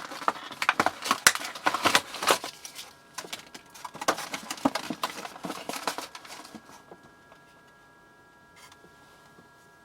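Hands handling the plastic case and the parts of a small cordless screwdriver kit: a busy run of clicks, taps and rustles that stops after about six seconds, leaving a faint steady high hum.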